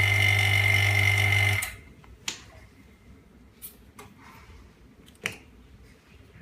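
Vacuum pump of an LCD separator machine running with a steady hum and a high whine, then cutting off suddenly about a second and a half in. A few light clicks follow.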